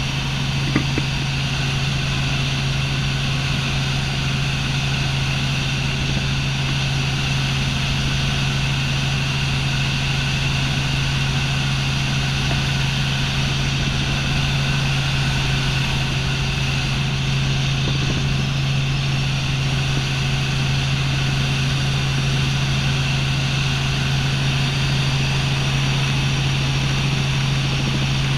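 Robinson R44 helicopter in level flight, heard from inside the cabin: a steady drone of the piston engine and rotors with a strong, even low hum. There is a brief click about a second in.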